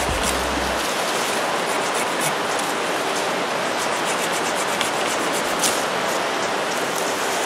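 A fast-flowing rocky river rushing steadily, with faint scratchy strokes of a small folding hand saw cutting through a green sapling's forked branch.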